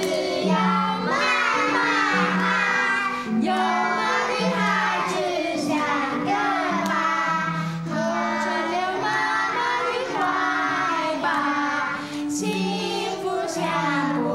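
A group of young children singing a song together in unison, with a keyboard playing a simple accompaniment of held notes underneath.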